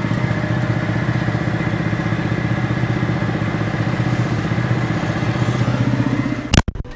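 Valtra tractor's diesel engine running steadily, heard loudly through the open cab door. About six and a half seconds in the door shuts with a thud and the engine sound drops and becomes muffled.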